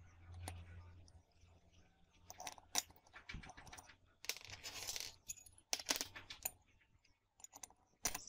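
Loose steel parts of a homemade bench vise clinking and scraping as they are set down and slid into place on its steel base plate. There are scattered sharp metallic clinks and a couple of longer scrapes.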